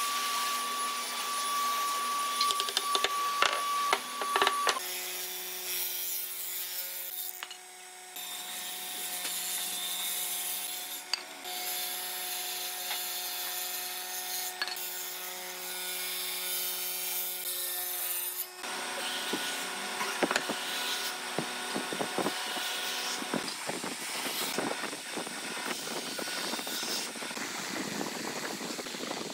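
Workshop sounds across several cuts: knocking and handling of wooden chair parts, then a steady machine hum with a few sharp hatchet chops into a log, then light scratching and tapping as timber is marked out with a pencil.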